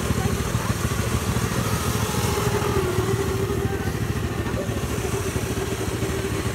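Small Polaris kids' snowmobile engine idling with a fast, steady putter, its pitch sagging slightly about three seconds in.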